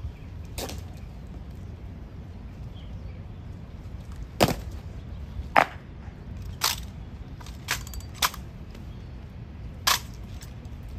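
Sharp, irregular cracks of an honor guard's drill, rifles slapped and caught and boot heels stamped on stone paving: about seven in all over a low outdoor background, the loudest two about four and a half and five and a half seconds in.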